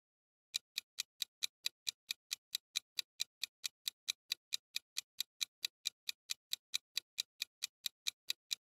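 Clock-tick sound effect counting down a quiz answer timer, about four to five even ticks a second. It starts about half a second in and stops just before the end.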